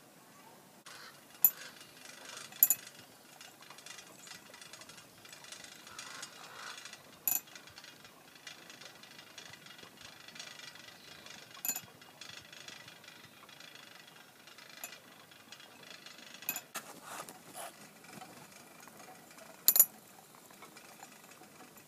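Magnetic spinning tops under glass jars and the small solar-powered DC motor driving them: a faint steady whir broken every few seconds by sharp, irregular clicks and clinks, some ringing briefly like glass or metal.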